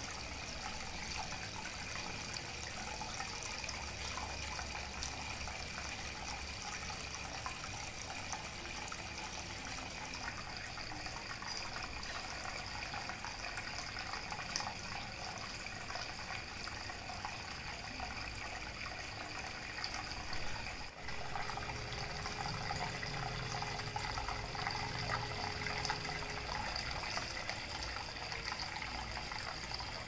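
Small tabletop waterfall fountain running: water falls steadily from a spout into a little basin and splashes and trickles into the pot below.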